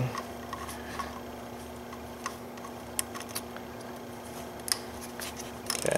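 A small ratchet wrench making a few scattered, faint metal clicks while it breaks loose the rust-stuck 10 mm bolts on the water pump pulley, over a steady low hum.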